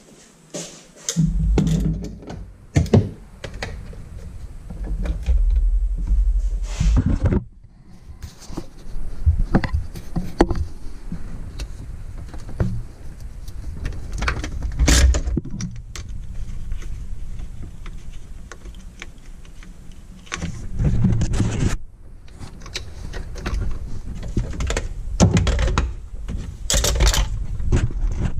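Irregular clicks, knocks and light clatter from handling the camera and parts in a jet ski's engine bay. Bursts of low rubbing rumble come from the camera being moved about.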